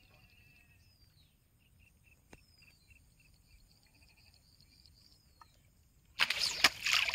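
Over quiet water, birds give a few falling whistles and a run of short chirps; about six seconds in, loud splashing breaks out at the surface, a hooked fish thrashing.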